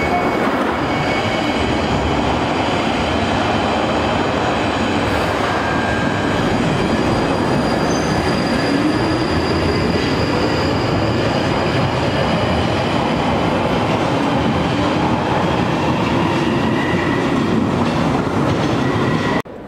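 London Underground 1995 Stock tube train pulling out of the platform and gathering speed: traction motors whine upward in pitch over the loud running noise of the wheels on the rails. It cuts off suddenly near the end.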